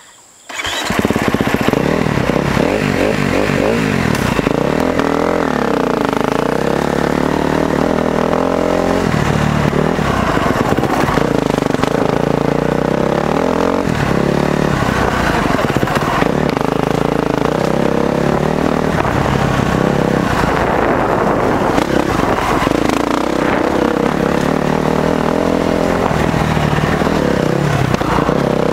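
KTM 350 SX-F motocross bike's single-cylinder four-stroke engine, heard from on board while riding. It starts about half a second in and runs loud throughout, revving up and dropping back repeatedly every few seconds as the bike accelerates and eases off along the dirt track.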